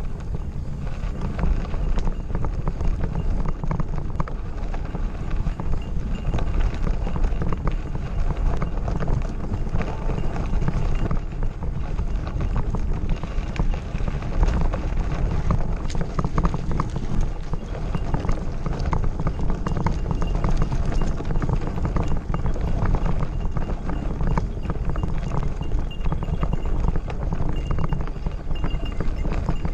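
Mountain bike riding over a gravel road: a steady crunch of tyres on stones and a dense rattle of small knocks from the bike, over a continuous low rumble.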